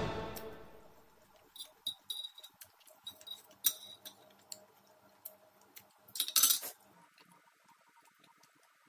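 Music fading out in the first second, then a metal fork and spoon clinking and scraping against a ceramic plate, with a louder clatter a little before the end as they are set down on the plate.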